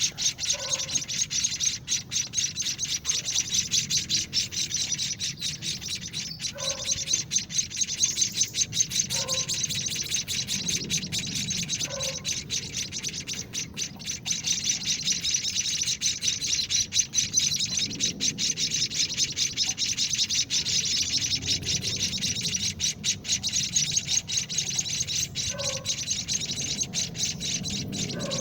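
Week-old munia (emprit kaji) nestlings begging for food with a dense, continuous chatter of rapid high-pitched chirps. A few short lower peeps stand out now and then.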